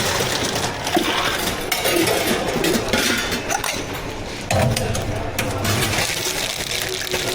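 Clinking and clattering of cups and utensils as drinks are prepared behind a milk-tea counter, with a busier, louder patch about four and a half seconds in.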